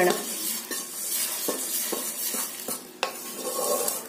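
Roasted vermicelli tipped from a nonstick pan into a pot of boiling water, which hisses steadily. A spatula scrapes the last strands out of the pan, with several sharp clicks as it knocks against the pan's rim; the loudest comes about three seconds in.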